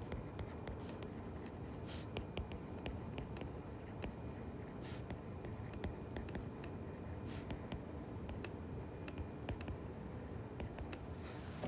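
Stylus tapping and scratching on a tablet screen while handwriting a line of text: faint, many small sharp ticks over a low steady hum.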